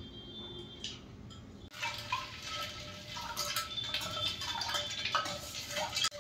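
Metal spoon stirring ice cubes in milk in a steel pot: irregular clinks of spoon against ice and metal with a light sloshing, starting about two seconds in.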